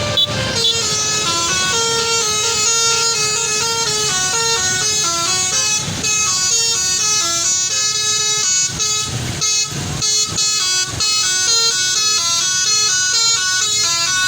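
A bus's musical "telolet" air horn playing a rapid melody of short stepping notes, running on without a break.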